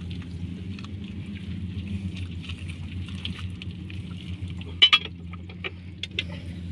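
A farm machine's engine running steadily, with scattered sharp clicks or knocks; the loudest, a close pair, come about five seconds in.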